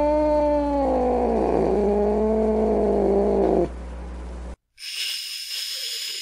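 An angry domestic cat's long, drawn-out yowl that drops lower about a second and a half in and breaks off after about three and a half seconds, over a low hum. After a short gap, a cat's hiss starts near the end.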